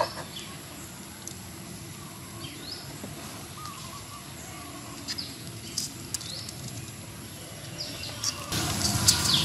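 Low outdoor background with a few short falling bird chirps and scattered light clicks. Right at the start a knife scrapes chopped chilli off a wooden board into a coconut-shell bowl, and about eight and a half seconds in a louder rustling noise with crackles sets in.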